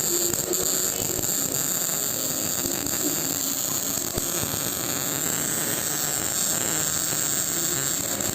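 MIG welding arc buzzing and crackling steadily in one continuous run.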